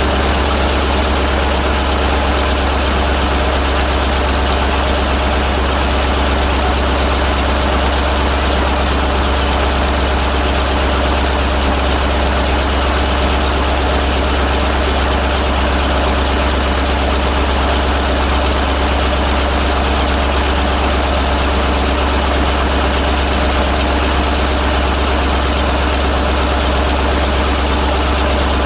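1948 Buda 8-DC-1125 straight-eight diesel (1125 cubic inches) of a Sicard rotary snowblower running at a steady idle, a low even drone with no change in speed.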